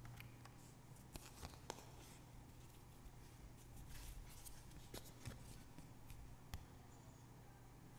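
Faint clicks and rustling of hands opening a wallet and pulling out paper banknotes, a handful of small sharp ticks scattered through, over a steady low hum.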